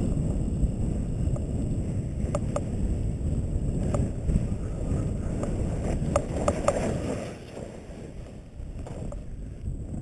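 Wind buffeting a camera microphone during a fast descent on snow, a dense low rumble mixed with the hiss of skis or board sliding on snow, with a few sharp clicks. The rush eases off about seven and a half seconds in as the descent slows.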